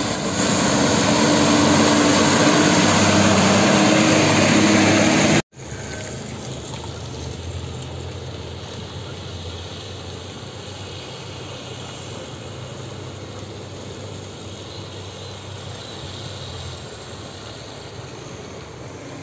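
A diesel dump truck's engine running loud as it drives close by, cut off abruptly about five seconds in. After that, a quieter, steady engine drone of trucks on the road further off.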